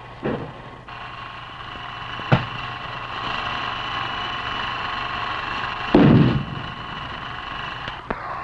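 Combat sound on old film: a sharp gunshot-like crack about two seconds in, then a louder, longer blast about six seconds in and a fainter crack near the end. Underneath is a steady hiss with a faint high hum.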